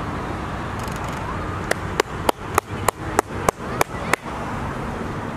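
A quick, regular run of about nine sharp clicks, roughly three a second, starting a little under two seconds in and stopping after about two and a half seconds, over a steady background noise.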